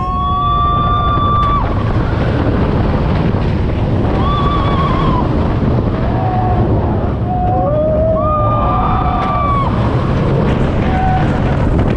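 Riders screaming on a roller coaster: several long held screams at different pitches, some overlapping, over a constant heavy rush of wind on the microphone.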